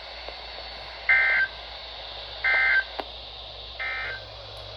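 NOAA Weather Radio SAME data bursts: three short, harsh two-tone digital squawks about a second apart, over steady radio hiss, the third fainter than the first two. Their shortness fits the end-of-message code that closes a warning broadcast.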